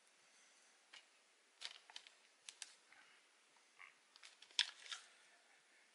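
Light, irregular clicks and taps of small shaver parts and tools being handled during lubrication, the sharpest a little past halfway.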